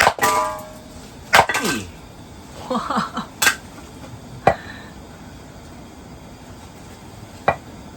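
Firewood being split with hard blows: five sharp cracking knocks a second or more apart, the first with a short metallic ring.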